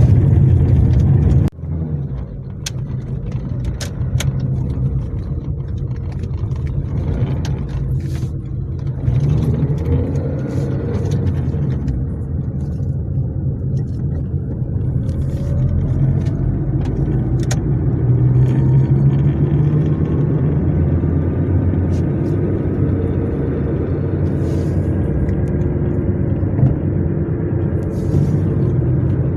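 Car driving along a country road, heard from inside: steady engine and tyre rumble, with scattered short sharp ticks and knocks.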